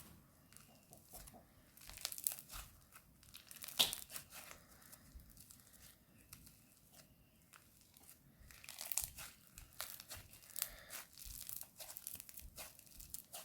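Crunchy slime being worked by hand, giving bursts of small crackling clicks and crunches. One louder snap comes about four seconds in, and the crackling is busier in the last third.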